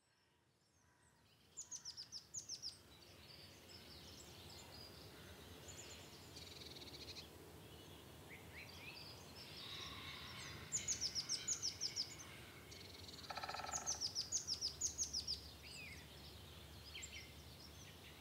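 Birds calling in bushland: several runs of quick, high descending chirps, with buzzier trills between them, over a faint background hiss. The calls start about one and a half seconds in.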